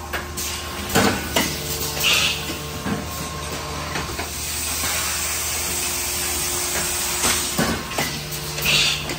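Industrial machine cycling: a steady low hum under a hiss that grows louder midway, with sharp metal knocks about a second in and again near the end, and two short high hisses about seven seconds apart.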